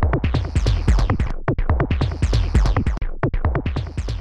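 Electronic music with a fast, busy beat and deep bass.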